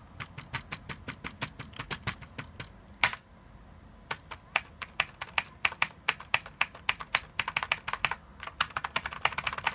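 Computer keyboard being typed on in quick runs of key presses, with one louder key strike about three seconds in, a short pause, then steady typing again.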